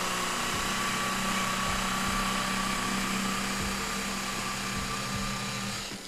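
Power burnishing tool with a 2-in-1 sandpaper and Scotch-Brite wheel running with a steady whine while a charred whiskey-barrel stave is worked back and forth against it to smooth its edges. The whine dips near the end.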